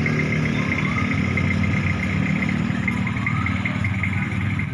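An engine running steadily at an even speed, with a pulsing high whine over its low hum.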